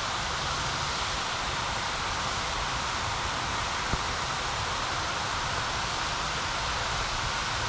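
Steady rushing hiss of river water flowing over rocks, even and unchanging, with one faint click about four seconds in.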